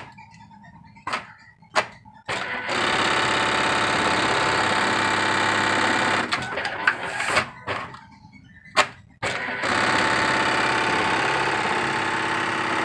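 JUKI MEB-3200 eyelet buttonhole sewing machine running two stitching cycles of about four seconds each, a steady fast mechanical run. Sharp clicks and knocks come before the first cycle and between the two.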